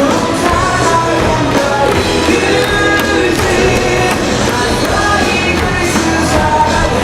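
Baseball stadium crowd singing a team cheer song in unison over loud amplified cheer music.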